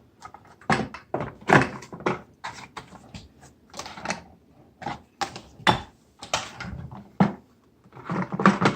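Irregular plastic knocks and clicks as caster wheels are pushed into the holes in a Shop-Vac wet/dry vacuum's base and the drum is handled.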